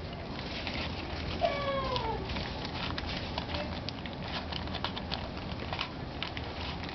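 Rubik's Cube clicking as its layers are twisted quickly, in irregular runs of clicks. About a second and a half in, a single short falling cry like a cat's meow cuts across the clicking.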